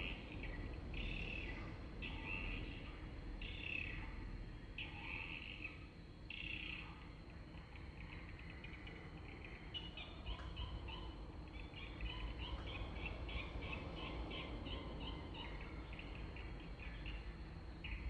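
Swiftlet chirps in repeated bursts of high twittering, turning into a faster, stuttering run of chirps about ten seconds in, over a low background rumble.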